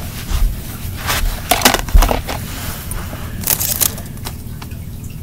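Rustling and scraping with light clicks as someone searches the floor by hand for spilled plastic beads, with two low thumps about half a second and two seconds in.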